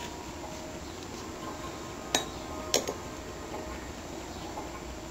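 A metal spoon clinking against a small glass bowl: two sharp clinks about two seconds in, half a second apart, the second one doubled, over a faint steady low hum.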